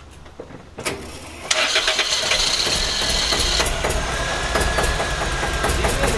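Car engine started about a second and a half in, then running loudly with a dense, rapid clatter: the awful noise its owner complains of.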